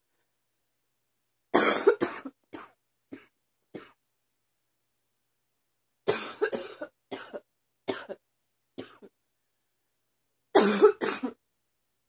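A woman coughing in three bouts, each opening with a strong cough and trailing off into a few weaker ones. The uploader puts the coughing down to allergies.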